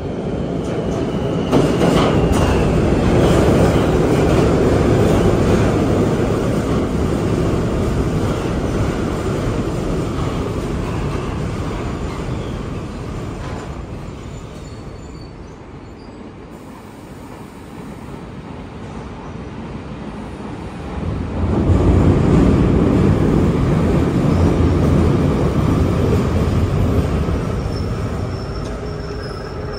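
Old electric commuter train rolling along the platform: a steady rumble of steel wheels on rail with a brief high wheel squeal about two seconds in. The rumble eases off around the middle, swells loudly again about twenty-one seconds in and then fades.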